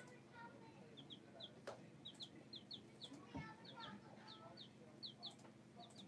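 Baby chicks peeping faintly: a steady string of short, high, downward chirps, many of them in quick pairs.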